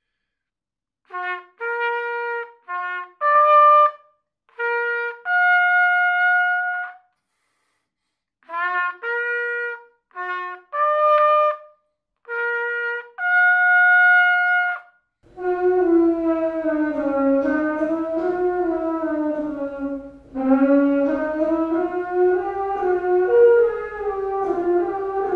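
Beginner's solo trumpet playing a slow melody in short phrases of separate notes, each phrase ending on a long held note, with pauses between. About fifteen seconds in a different recording begins: trumpet playing a continuous, sliding line over fuller sound.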